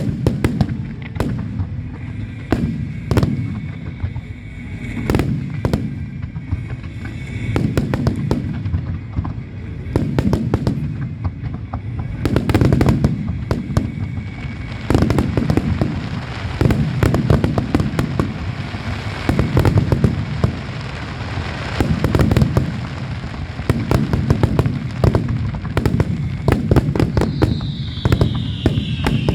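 A fireworks display: a rapid run of shell bursts with deep booms and crackling, growing denser from about halfway, and a falling whistling tone near the end.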